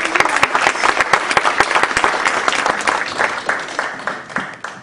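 Audience applauding in dense clapping that thins out and fades near the end.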